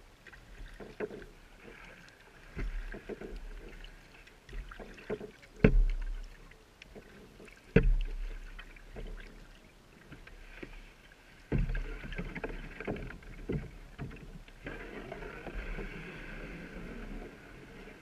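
Kayak paddling on calm water: paddle blades dip and splash at an uneven pace, and water drips and laps along a plastic recreational kayak hull. Sharper strokes stand out about six and eight seconds in.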